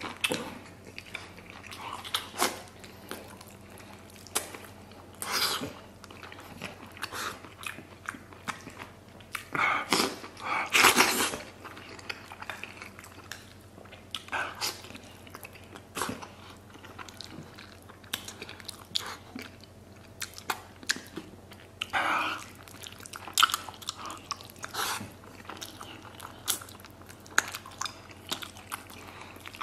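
A man chewing and biting mouthfuls of rice mixed with braised pig trotters and pickled cabbage, close to the microphone. The sound is irregular clicks and short bursts, louder around ten seconds in and again at about twenty-two seconds.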